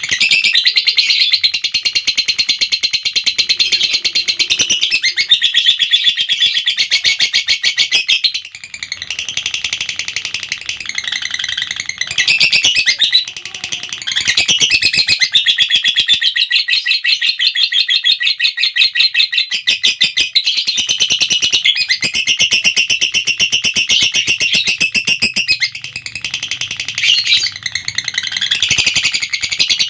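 Lovebird giving its long 'ngekek' chatter: a rapid, continuous, high-pitched run of chirps, broken by a few short pauses.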